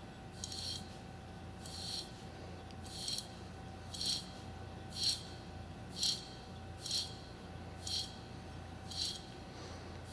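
Worn front wheel bearing hub from a 2006 Chevy Malibu being turned by hand. Each turn gives a short gritty, grinding rasp, about once a second: the sound of a bad, rough bearing.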